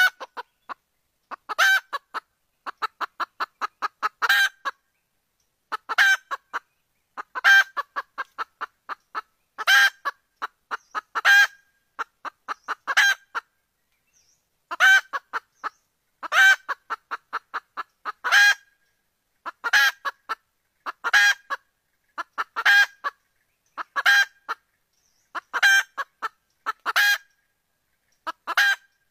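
Junglefowl hen cackling: loud calls about every one and a half seconds, with rapid runs of short clucks between them in the first half. It is a hen's call that draws a male to mate.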